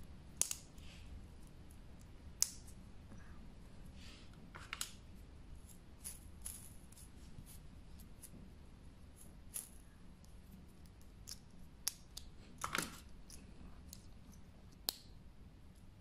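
Faint, scattered small metallic clicks and taps as a SEBA Twincam ILQ inline-skate bearing is handled and its shields fitted back in by hand during reassembly.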